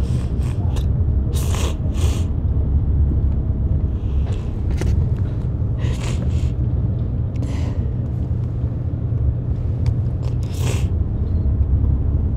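Steady low road rumble of a car heard from inside the cabin while it drives, with short hissing sounds now and then.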